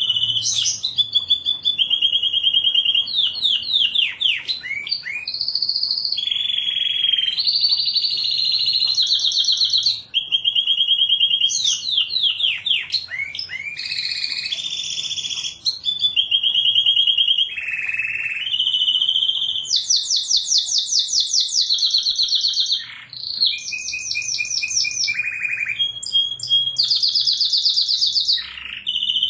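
Canary singing a long, unbroken song of rapid trills, each phrase a fast run of repeated notes, switching to a new phrase every second or two, some phrases high and some very high.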